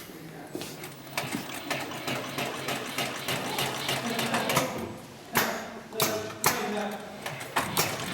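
Heavy-duty upholstery sewing machine (model 204-370) stitching with a fast, steady ticking for a few seconds, then a handful of separate loud knocks in the second half.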